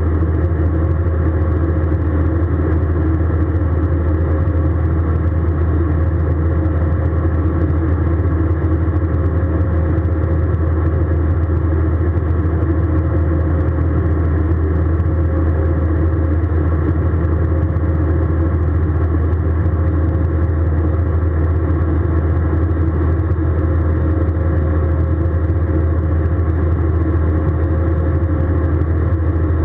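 Steady cabin noise of an Airbus A320 in flight: the drone of the jet engines and airflow, a loud low hum with a few steady tones above it, unchanging throughout.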